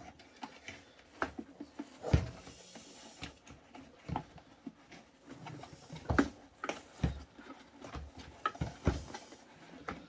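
Handling noises as a filter bag is pulled onto the plastic motor head of a Hart wet/dry shop vac: irregular knocks, taps and rustling of plastic and fabric, with louder knocks about two seconds in, twice around six to seven seconds and again near nine seconds. The fit is snug.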